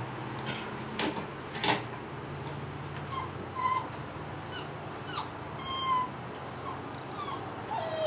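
Puppies whimpering while they wait to be fed: a string of short, high-pitched squeaky whines over the last few seconds. Two sharp clicks come about one and two seconds in.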